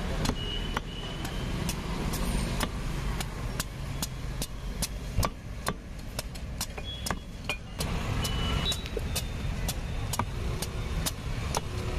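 Large chopping knife shaving the spiky rind off a raw jackfruit in quick strokes, about two to three sharp cuts a second, over a steady low rumble of road traffic.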